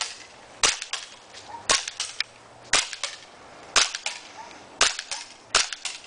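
Tokyo Marui G18C green-gas blowback airsoft pistol firing semi-automatic: six sharp cracks about a second apart, with fainter clicks after some of them.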